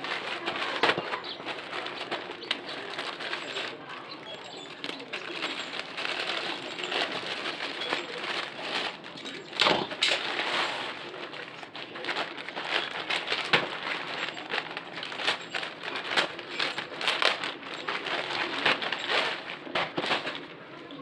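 Plastic packaging rustling and crinkling as it is handled and opened, with many irregular sharp crackles.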